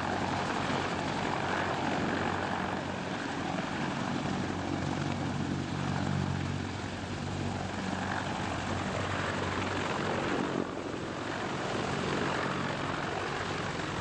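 Sikorsky CH-53 heavy-lift helicopter hovering with a slung Humvee: a steady low rotor drone under a broad rush of turbine and rotor-wash noise. The level dips briefly and abruptly about ten seconds in.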